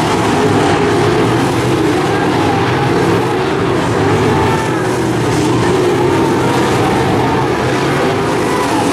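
A pack of dirt-track modified race cars' V8 engines running at race speed together. Their pitches rise and fall as the cars go through the turns.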